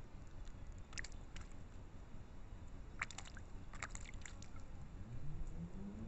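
Eurasian magpie dipping its bill in a shallow dish of water, washing its food: a few small wet clicks and splashes, one about a second in and a quick cluster a little past the middle, over a steady low rumble.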